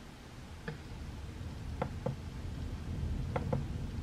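Computer mouse clicking: one click, then two quick pairs of clicks, over a faint low room hum.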